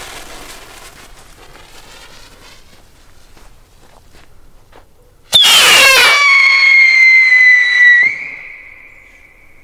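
Weco 'Tolle Lola' whistling firework going off: a sudden rush about five seconds in, then one shrill, loud whistle that slides down in pitch for about three seconds and fades away.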